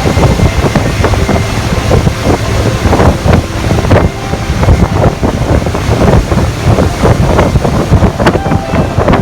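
A motorboat running with strong wind buffeting the microphone, making a steady loud rumble with constant gusty thumps.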